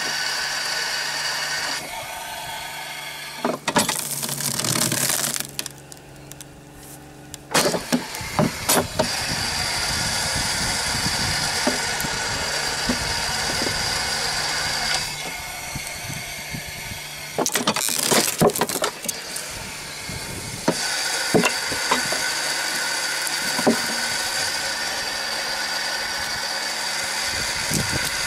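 Pressure-washer pump running steadily to drive a water-hydraulic log splitter, its sound dropping for several stretches as the load on the ram changes. Sharp cracks and knocks come in clusters from logs splitting and wood being handled on the steel table.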